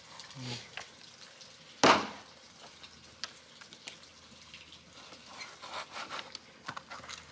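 A knife working through frozen pork: scattered small clicks and scraping, with one sharp loud knock about two seconds in.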